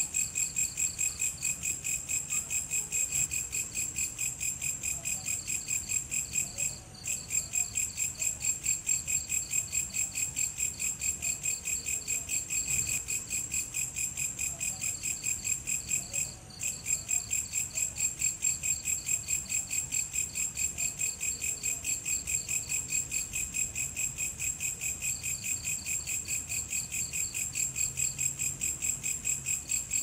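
Crickets chirping at night: a high-pitched, fast, even pulse of several chirps a second. It breaks off for a moment twice.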